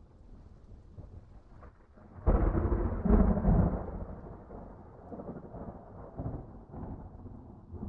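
A deep rumble that swells suddenly to a loud peak about two seconds in, then dies away over the next couple of seconds, with smaller rumbles after it.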